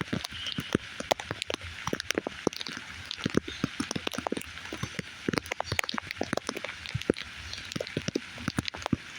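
Rain falling, with many separate drops ticking irregularly on a nearby surface over a steady hiss.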